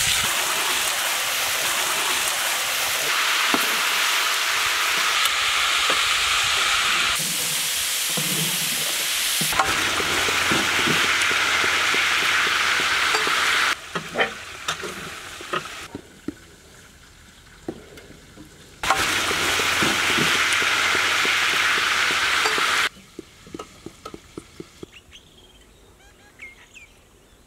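Small chicken pieces deep-frying in a large pan of hot oil, a loud steady sizzle that falls away to a faint scatter of crackles about fourteen seconds in, comes back a few seconds later, and drops off again near the end.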